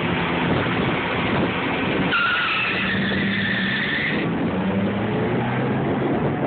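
Two drag racing cars launching off the start line and accelerating away down the strip, engines revving hard. About two seconds in a high squeal joins them and lasts about two seconds.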